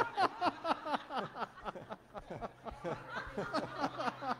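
A man laughing hard into a handheld microphone: a rapid run of short 'ha' bursts, each falling in pitch, about four or five a second.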